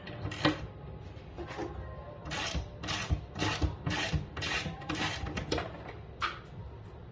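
Hand ratchet wrench worked back and forth to loosen a nut, giving a short rasping run of clicks on each stroke, about two strokes a second through the middle, with a couple of sharper single clicks before and after.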